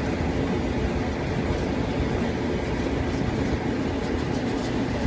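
Whirlpool clothes dryer running on a test after its burnt wires and thermal cut-off were replaced: a steady rumble of the motor and turning drum, with faint light ticks near the end.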